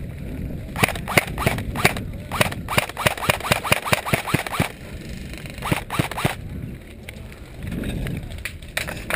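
Airsoft M4-style electric rifle fired in quick single shots: sharp clicks start about a second in, then run in a fast even string of about five or six a second, with a few more shots around six seconds in.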